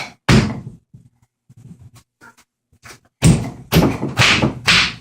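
A small child jumping on bubble wrap: thuds of landing with bubbles popping. There is one jump just after the start, a few faint pops in the middle, then four jumps in quick succession from about three seconds in.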